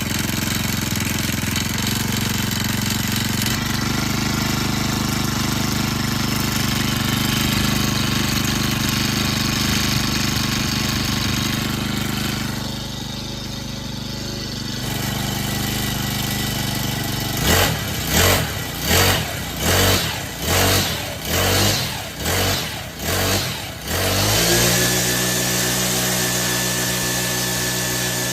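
ASPEE four-stroke brush cutter engine running after its no-start repair. About two-thirds through, the throttle is blipped about nine times in a row, each rev rising and falling. The engine then settles to a steady idle.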